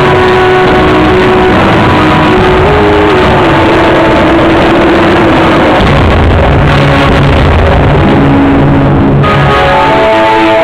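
Loud, densely mixed music with held notes that step from pitch to pitch; the music changes about nine seconds in.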